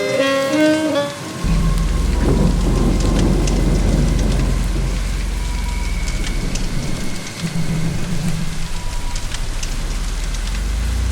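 Rain falling steadily, with a long rolling rumble of thunder that starts about a second in and carries on to near the end.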